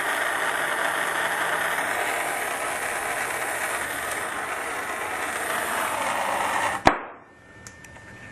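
Handheld plumbing torch flame hissing steadily while heating a copper pipe joint for soldering, then cutting off with a single sharp pop about seven seconds in.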